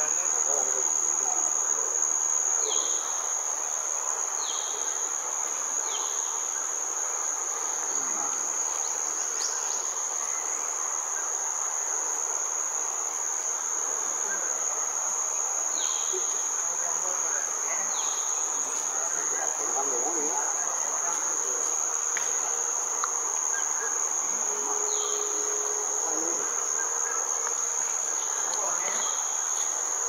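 Insects in a rain forest keep up a steady, high-pitched drone without a break. A few short, high chirps sound over it now and then.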